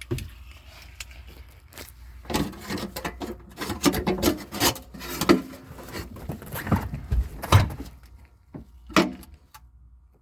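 Irregular knocks, clatters and rubbing of things being handled, busiest in the middle of the stretch, with a couple of sharp clicks near the end.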